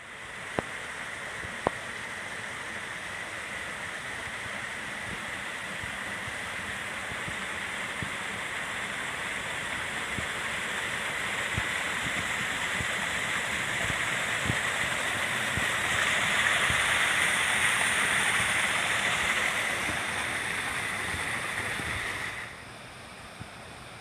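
Water rushing and splashing over rocks in a mountain creek and small waterfall, a steady hiss that swells past the middle and drops off sharply near the end. Two sharp clicks sound near the start.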